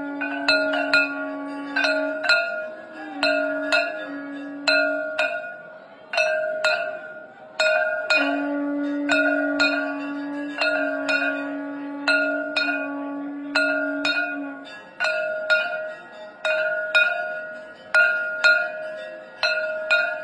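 Conch shell (shankh) blown in long, steady held notes that break off briefly a few times and stop for good about two-thirds of the way through. Over it, a metal bell is struck again and again, about once a second, each stroke ringing on.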